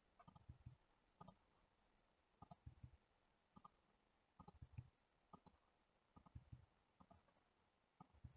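Faint clicking of a computer mouse, in small groups of two or three clicks about once a second.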